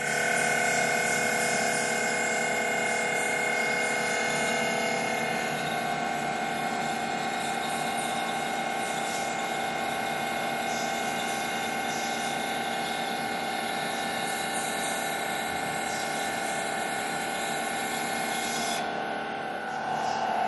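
DI-ACRO No. 6 tube bender running: a steady motor whine made of several held tones, shifting in pitch near the end.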